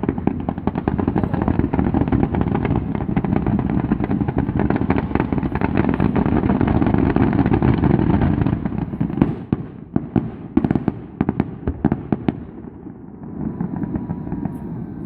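Fireworks going off in a dense, rapid crackling barrage for about eight seconds, then thinning to a dozen or so separate pops and bangs before dying down near the end.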